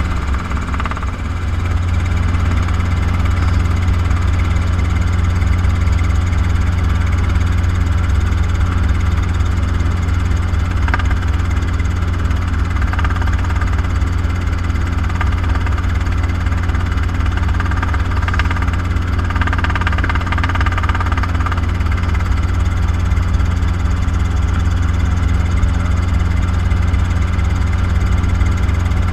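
Robinson R22 helicopter in flight: a steady drone of its four-cylinder piston engine and rotor.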